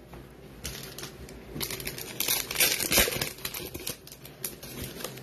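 A trading card pack's foil wrapper crinkling and tearing as it is ripped open by hand. It comes as a run of sharp rustles, loudest around the middle.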